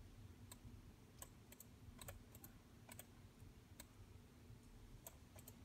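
Faint, irregular clicks of computer keys and buttons, two or three a second with some in quick pairs, over a faint steady low hum.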